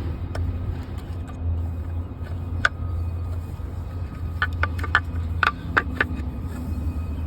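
Sharp clicks and clinks from engine-bay parts being handled while the replacement engine control unit is set in place, one or two early on and a quick run of about eight about four and a half to six seconds in, over a steady low rumble.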